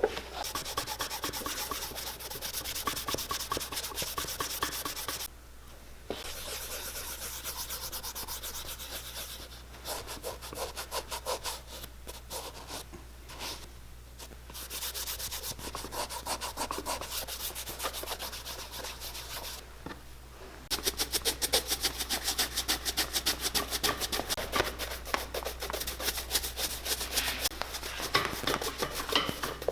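Fast back-and-forth rubbing strokes on a leather shoe sole, working in cream and wax. The strokes come in several bouts with short pauses, and the last bout is the loudest.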